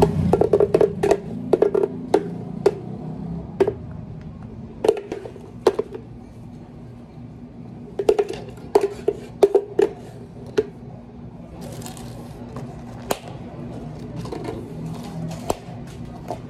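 Scattered sharp clicks and taps of plastic drink cups being handled on a stainless steel counter, with clear plastic dome lids pressed onto two milkshake cups.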